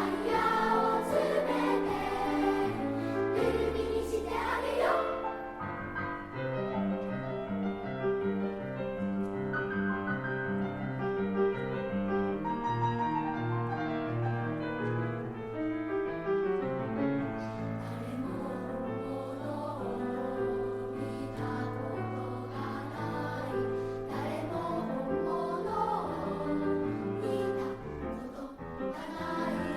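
Elementary-school children's choir singing a three-part chorus, with sustained low piano-like notes underneath. The singing is continuous, moving from note to note without a break.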